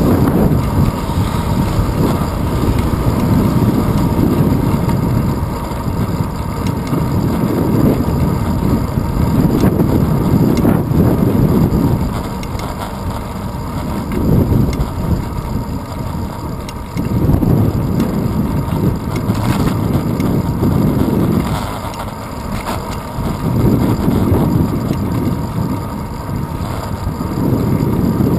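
Wind buffeting a handlebar-mounted GoPro Hero 2 on a moving bicycle, together with road rumble from the tyres on asphalt. It is a low rushing that swells and eases every few seconds.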